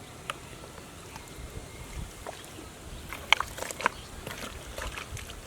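Wet splashing and squelching in muddy pond water, with a cluster of sharper splashes about three to four seconds in.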